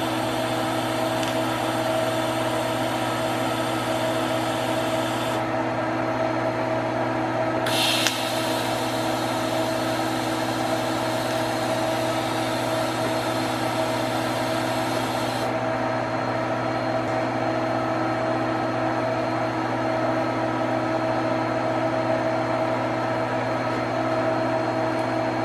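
TIG welding arc hissing in two stretches: the first stops about five seconds in, the second starts with a sharp crackle about eight seconds in and stops about halfway through. Beneath it runs a steady mechanical hum with a few fixed tones.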